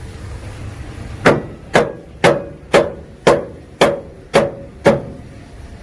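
Hammer striking metal eight times at a steady pace of about two blows a second, each blow ringing briefly, on the steel threshing-screen and drum parts of a combine being assembled.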